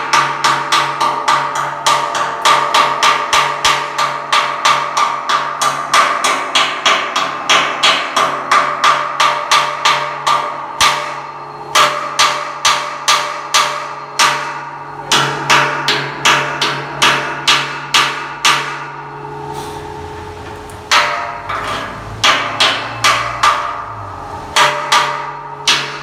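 Rapid hammer blows on a large steel pipe, about three a second, in runs broken by short pauses; each blow leaves the metal ringing.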